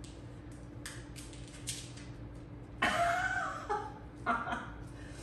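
A short vocal sound, bending and falling in pitch, about three seconds in, then a briefer one a second later, after a few faint clicks.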